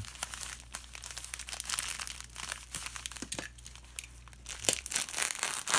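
Plastic poly mailer crinkling and rustling as it is handled, with a run of louder sharp crackles near the end.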